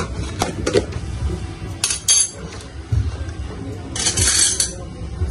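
Kitchen utensil clinking and scraping against a dish while mixing baking ingredients: a few sharp clinks in the first couple of seconds, then a longer scrape about four seconds in.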